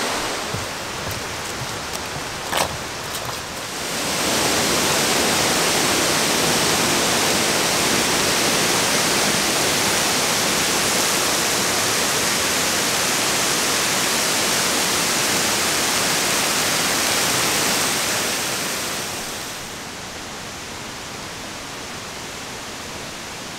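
Waterfall pouring, a steady rushing hiss that grows louder about four seconds in and drops back down a few seconds before the end.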